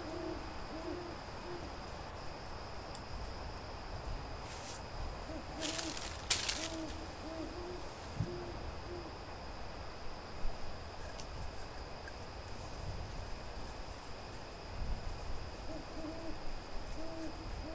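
An owl hooting faintly: runs of short, low, slightly arched hoots a little under a second apart, coming in three bouts. A couple of brief rustles about six seconds in.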